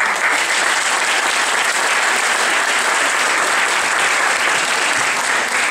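An audience applauding, the clapping breaking out all at once and holding steady.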